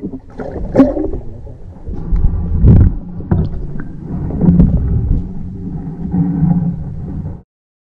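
Underwater river sound picked up by a submerged camera: a loud low rumble and gurgle of moving water, with a few sharp knocks against the housing. It cuts off abruptly near the end.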